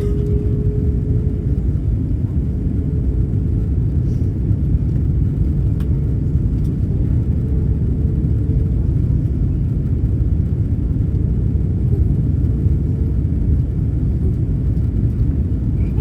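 Steady low rumble of an Airbus A330 airliner's cabin in flight on approach: engine and airflow noise as heard from a passenger seat. A faint steady hum sits above it for the first second or two.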